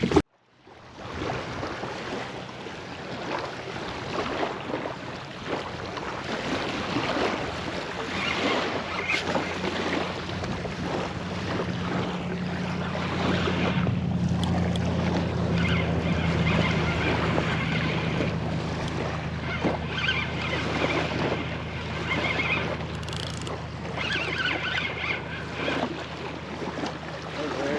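Water sloshing and splashing around a paddled kayak, with wind buffeting the microphone.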